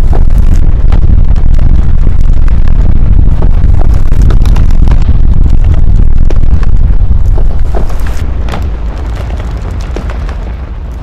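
Earth-cracking and ground-collapse rumble: a loud, heavy low rumble shot through with many cracks and knocks, fading out over the last few seconds.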